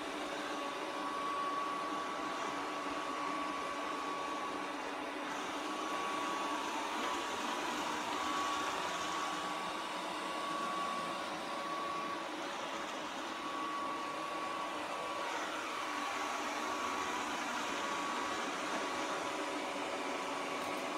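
Robot vacuum cleaner running on a hard wooden floor: a steady whirring hum with a thin high whine that comes and goes.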